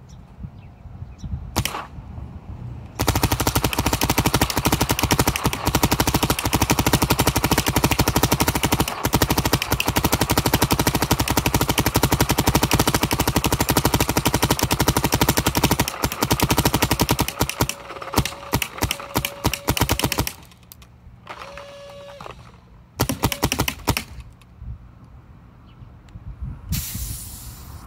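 Bob Long VIS paintball marker with a VCOM spool engine firing uncapped semi-automatic: one shot, then a long unbroken string of rapid shots for about thirteen seconds, followed by shorter strings with pauses between them. The marker is running a little low on air.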